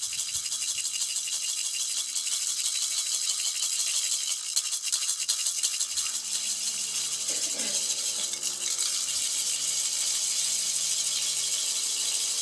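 A rattle shaken without pause, a continuous dense dry rattling, with a faint low drone beneath it and a brief rising and falling tone about seven seconds in.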